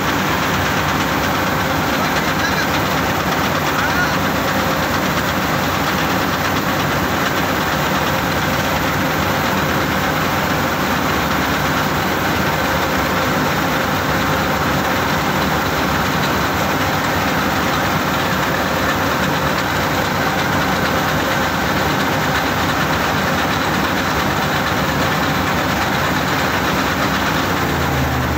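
CLAAS Crop Tiger 30 Terra Trac combine harvester running at steady working speed while its unloading auger discharges threshed paddy grain into a trolley: a loud, continuous mechanical din that holds even throughout.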